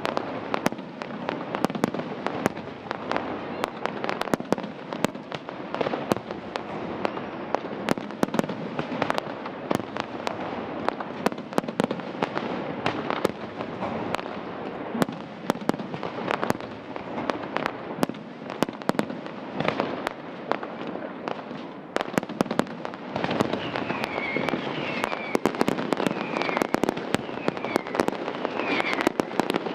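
Fireworks display: a dense, continuous barrage of bangs and crackling from aerial shells bursting. A run of short falling whistles joins in about three-quarters of the way through.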